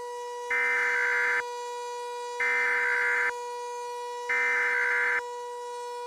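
Emergency Alert System SAME header: three loud data bursts of about a second each, a second apart, sounding as a harsh digital screech. Under them a steady, siren-like tone holds throughout.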